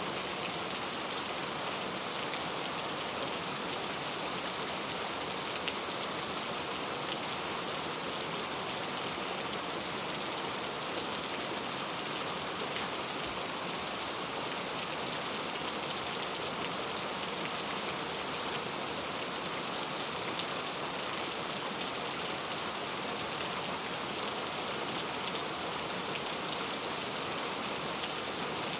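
Steady rain falling on a road, a continuous even hiss with faint scattered drop ticks.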